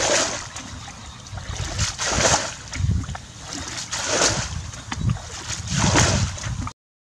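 Muddy water bailed out of a shallow ditch with a plastic bucket: a splash about every two seconds, four in all, as each bucketful is scooped and flung out, with sloshing in between. The sound cuts off suddenly near the end.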